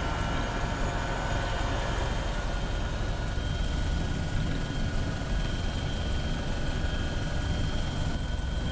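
Helicopter in flight: steady rotor and engine noise with a constant high turbine whine over it.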